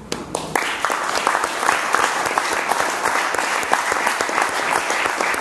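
Audience applauding: a room full of people clapping, setting in about half a second in and holding steady.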